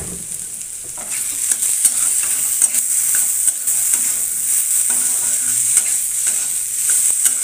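Potato and eggplant cubes sizzling in hot mustard oil in a kadai. A steel spatula scrapes and knocks against the pan as they are stirred, and it gets louder about a second in.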